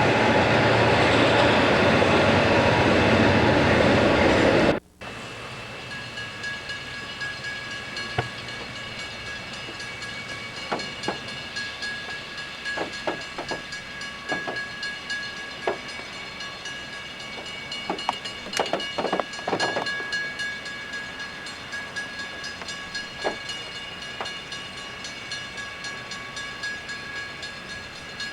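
A passing train makes a loud, steady rushing noise that cuts off suddenly about five seconds in. After that a train is heard more quietly, with a few steady high whining tones and scattered sharp clicks.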